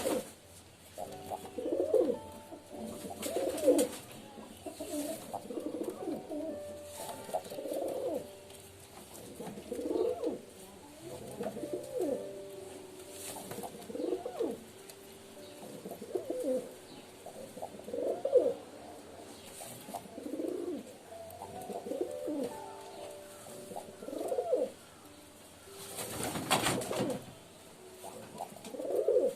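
Domestic pigeons cooing over and over, a coo about every two seconds, the calls overlapping at times. A brief loud rustle near the end.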